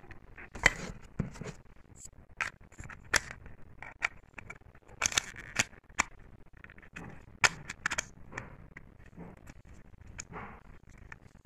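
Hard plastic puzzle-ball pieces clicking, knocking and scraping against each other as they are pushed and snapped into place, with irregular clicks and a few sharper snaps.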